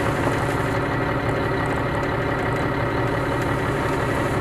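M142 HIMARS truck's diesel engine idling steadily, heard from inside the crew cab.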